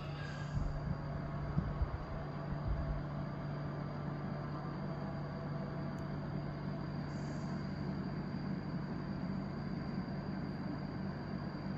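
Panasonic CS-PN18WKJ split air conditioner indoor unit running: a steady rush of air from its fan over a low hum, with a few low thumps in the first three seconds.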